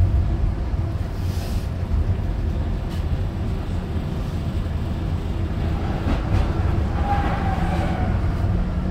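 M31 tram running, heard from inside the passenger car: a steady low rumble of motors and wheels on the rails, with a faint whine about seven seconds in.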